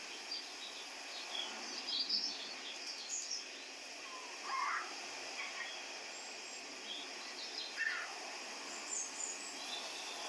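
Birds chirping and calling now and then over a steady background hiss: short high chirps throughout, with two lower, louder calls about four and a half and eight seconds in.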